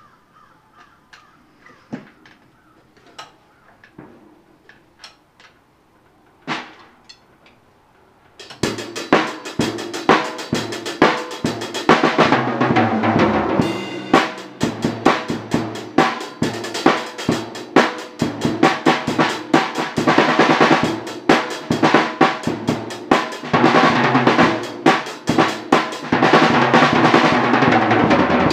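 A few quiet, scattered taps for about eight seconds, then a drum kit starts up loud: fast, continuous playing on the drums and cymbals.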